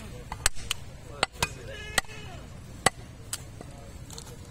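Butcher's cleaver chopping beef brisket on a wooden log chopping block: about seven sharp, irregularly spaced chops.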